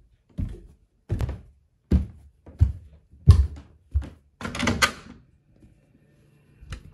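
A person's footsteps thudding down wooden stairs, about one step every 0.7 s, with a longer scuffing sound about four and a half seconds in.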